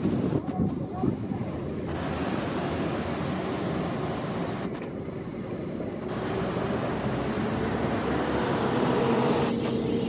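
Kagoshima City 9500-type tram rolling in slowly, its wheels clattering on the rails for the first second or so, then a steady rumble of noise with wind on the microphone. A faint steady hum comes in during the second half.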